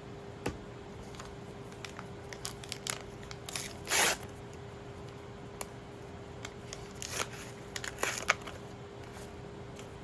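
Trading cards being handled and sorted by hand: scattered light clicks and slides of card stock, with one louder swish about four seconds in and a cluster of rustles near the end.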